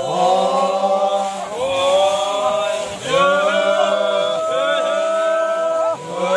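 A group of voices chanting together, holding long notes at several pitches, in phrases a few seconds long with brief breaks between them.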